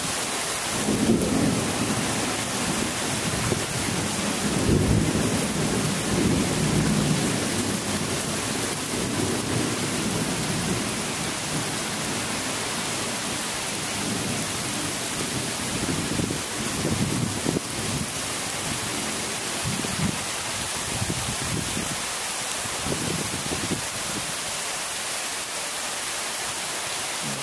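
Heavy rain pouring steadily, with low rumbles of thunder coming and going, strongest in the first several seconds.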